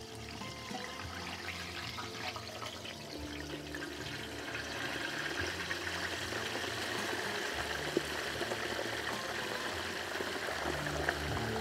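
Hot peanut oil at about 350 °F bubbling and sizzling as a whole turkey is lowered slowly into a deep-fryer pot. The bubbling grows louder about halfway through as more of the bird goes under.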